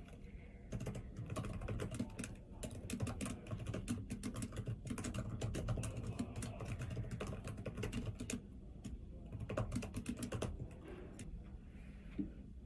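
Typing on a computer keyboard: runs of quick keystrokes that start about a second in and thin out near the end.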